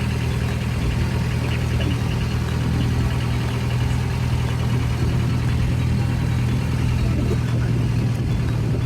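Boat engine running steadily, with a constant low hum.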